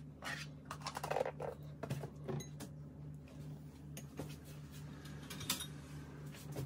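Faint scraping and light clinks of a metal spoon scooping soft margarine in a small ceramic bowl, over a steady low hum.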